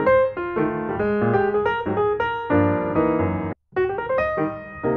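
Background piano music with a steady run of notes; it cuts out for a split second about three and a half seconds in, then carries on.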